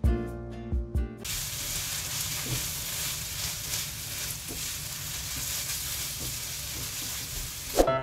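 Dried anchovies sizzling as they stir-fry in gochujang sauce in a hot wok while a spatula stirs them. The sizzle starts about a second in, after a few notes of music, and stops just before the end, when music comes back.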